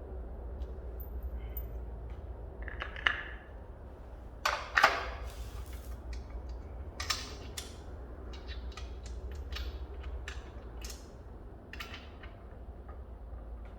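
Scattered clicks, knocks and rattles of objects being handled, with louder knocks about three and five seconds in, over a steady low hum.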